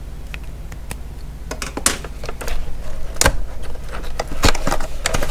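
Cardboard packaging being handled and opened by hand: a run of scattered taps, clicks and scrapes, the sharpest two about three and four and a half seconds in.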